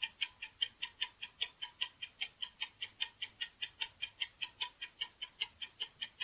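Quiz countdown-timer sound effect: clock-like ticking, fast and even at about five ticks a second.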